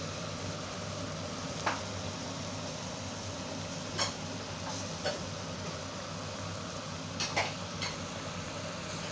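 Clams in their shells simmering in sauce in a wok: a steady sizzle with a few short clicks and pops scattered through it, over a steady low hum.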